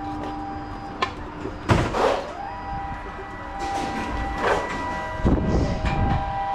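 Reverse vending machine running with a steady whine, one tone of which rises in pitch about two seconds in as a motor spins up. Several loud clunks and rattles come as the machine's metal service door is opened, the biggest about two seconds in and again about five seconds in.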